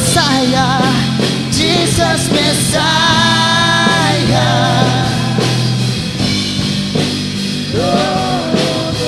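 Live worship band playing a passage of a contemporary worship song without lyrics: a wavering lead melody over a steady bass, with drums.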